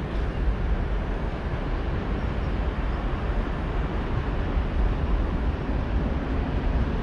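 Train at a station platform, a steady low rumble that neither swells nor fades.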